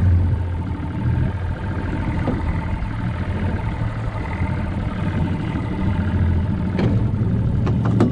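Tohatsu outboard motor idling steadily under the boat, a low hum with a thin steady whine above it. A few short knocks come near the end.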